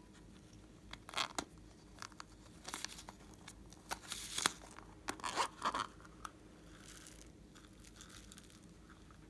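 The zipper of a silicone pop-it coin purse being pulled open in several short, sharp rasps, followed near the end by a softer patter of small beads shaken out into a glass dish.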